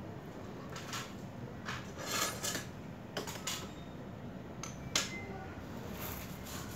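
Small hard parts being handled and set down: irregular light clicks and clatter, the sharpest click about five seconds in.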